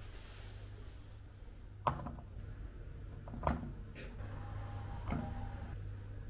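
A few light knocks and clatters as butter is handled and set into a stainless-steel mixing bowl on a kitchen scale, over a low steady hum.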